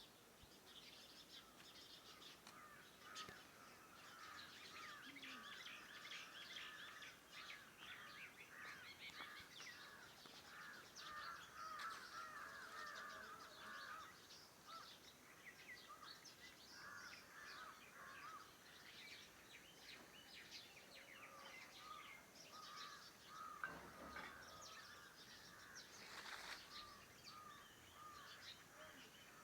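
Faint morning chorus of many birds chirping and calling over one another, busiest in the first half. A single sharp click a little past three-quarters of the way through.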